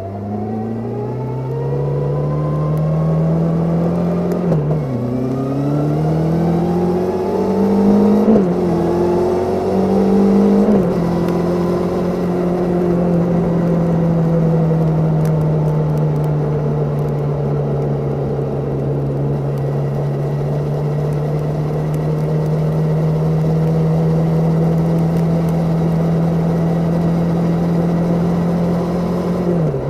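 Suzuki Katana 750 inline-four engine pulling hard through the gears: the engine note rises, drops sharply at each of three upshifts in the first eleven seconds, then holds steady at cruising speed, with one more brief dip near the end. Heard from under the motorcycle's seat.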